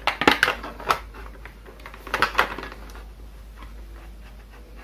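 Hard plastic clicking and tapping as a clear visor is handled and pressed against the Steelbird SBH-17 helmet's shell and side mechanism. A cluster of clicks in the first second, another about two seconds in, then only faint ticks.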